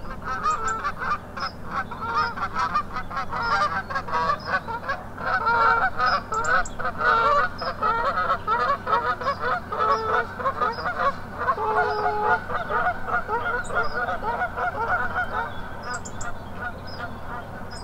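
A flock of geese honking in flight, many calls overlapping, busiest in the middle and thinning out toward the end.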